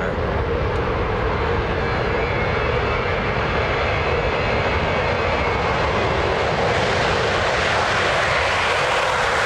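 Four F/A-18 Super Hornet jets on their takeoff roll with afterburners lit: a steady, loud jet noise that grows louder and brighter toward the end.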